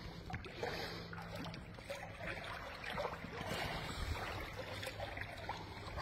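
Legs in rubber water boots wading through deep standing water, with water sloshing and swirling at each slow stride.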